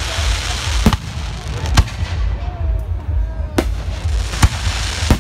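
Aerial fireworks bursting overhead: about five sharp bangs at irregular intervals, over a steady low rumble, with crackling near the start.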